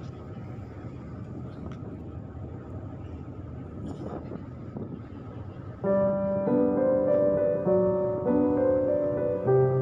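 A steady rumble and wind noise, as heard aboard a ship. About six seconds in, piano music starts and becomes the loudest sound.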